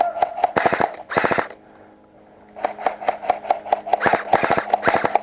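Airsoft electric gun firing on full auto: a rapid, even rattle of shots with a steady motor whine. It fires in two long bursts with a short pause about halfway through.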